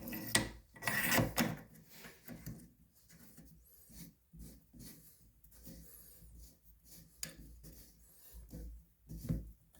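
Plastic scraping and knocking as a nut on a Fluidmaster toilet fill valve is turned tight by hand. It is loudest in the first second and a half, then dies to faint, broken rubbing.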